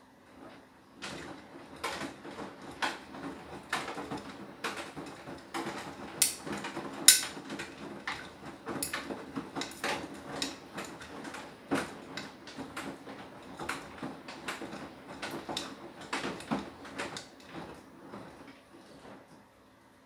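Beko WTK104121W washing machine drum turning during its Anti Allergy wash, the load tumbling with an irregular run of clunks and clicks. The tumbling starts about a second in and stops shortly before the end, leaving only a faint hum.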